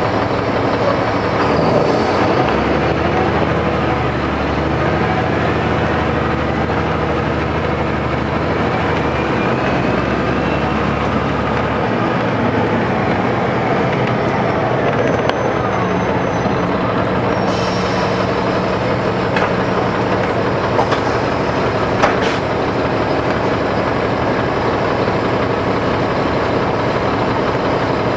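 Caterpillar C13 ACERT inline-six diesel of a NABI 416.15 transit bus idling steadily while the bus stands at a stop, its low engine note heavier for the first third. A single sharp click comes about two-thirds of the way through.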